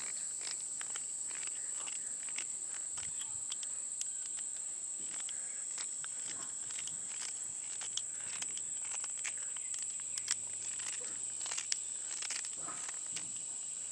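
Steady, high-pitched chorus of crickets or other insects, with scattered short clicks and knocks over it.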